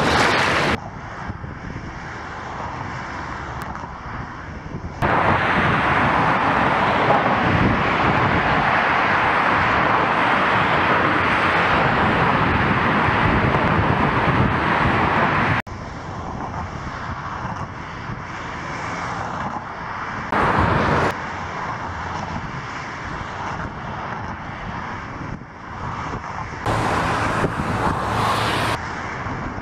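A steady engine drone mixed with wind and outdoor noise. It jumps abruptly louder or quieter several times as the sound is cut between takes.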